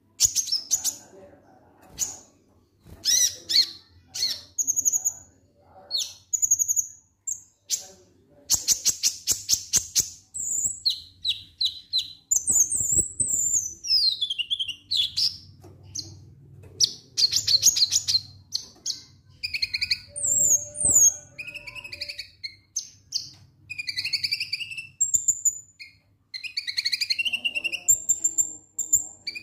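A konin sunbird singing in short, high, sharp chirps and twitters: the "ngek ngek" song type. A fast rattling trill comes about nine seconds in, and a falling whistled sweep around thirteen seconds.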